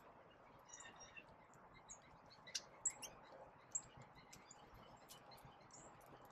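Small songbirds at seed feeders giving faint, scattered short chirps and chip notes, with a few louder ones around the middle.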